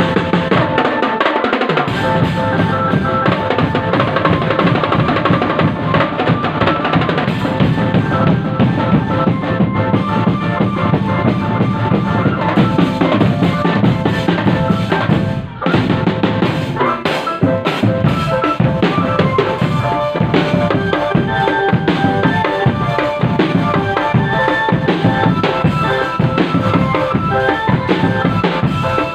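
Indonesian marching drum band playing: bass and snare drums beat steadily under a held melody line, with a brief drop in sound about halfway through.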